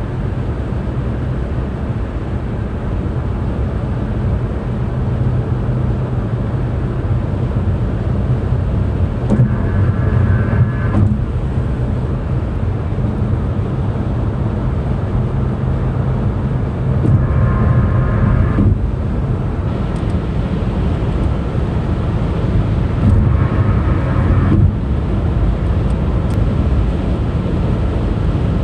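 Car tyres running over highway pavement: a steady low rumble with a pitched hum from the road surface. A higher tone rises above the rumble three times, each for a second or two.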